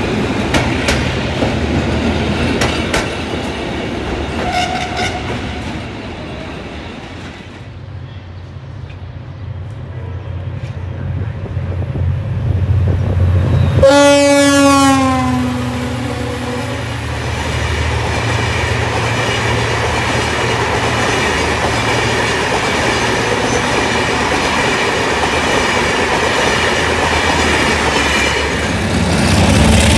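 Passenger coaches rolling past with wheel clicks over the rail joints, then a low rumble building; about halfway in a locomotive horn blasts for about two seconds, its pitch sagging as it passes. After that a locomotive-hauled train of coaches rumbles and clatters steadily past.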